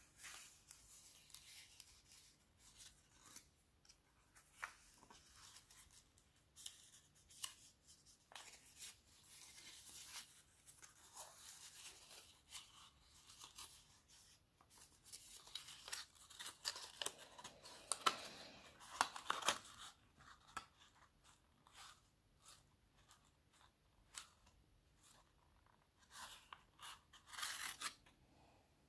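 Origami paper being folded and creased by hand: crisp rustling and crinkling with many short, sharp crease snaps, busiest a little past the middle and again just before the end.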